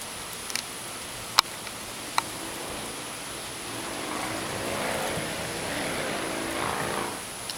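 Steady hiss of heavy rain, with three sharp ticks in the first couple of seconds. From about four to seven seconds in, a vehicle passes, its sound swelling and fading over the rain.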